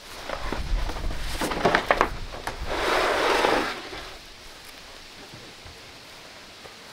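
Wooden boards knocking and clattering a few times, then about a second of scraping, as a board is pulled from a stack leaning against a wall.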